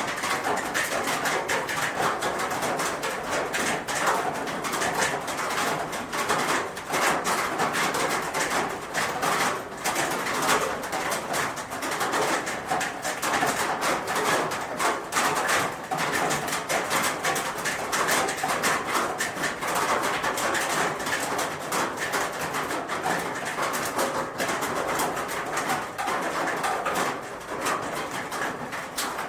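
Rain falling on a roof: a steady, dense patter of drops.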